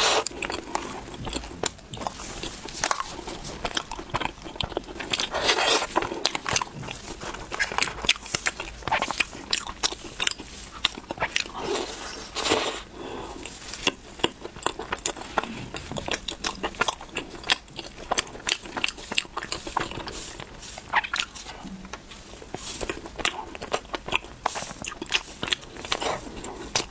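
Close-miked biting and chewing of flaky egg-yolk pastries (dan huang su): irregular soft crunches and crackles of the pastry crust, with chewing mouth sounds.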